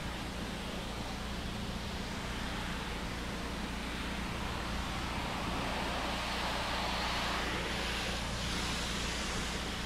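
Pressure washer engine running steadily under the hiss of a water spray, the spray growing louder about six to nine seconds in.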